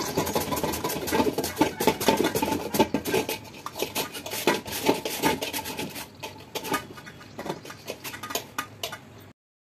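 Raw potato pushed repeatedly over the blade of a stainless-steel hand slicer resting on a steel bowl: a quick run of scraping slicing strokes with sharp metallic clicks as it cuts thin chip slices. The sound cuts off abruptly near the end.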